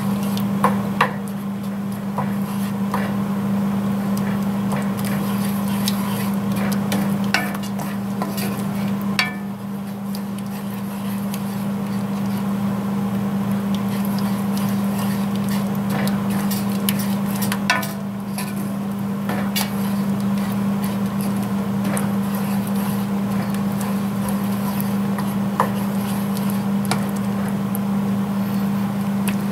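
Wooden spatula stirring and scraping through cheese sauce in a cast iron skillet, with scattered knocks of the spatula against the pan, while the cheese melts into the sauce. A steady low hum runs underneath.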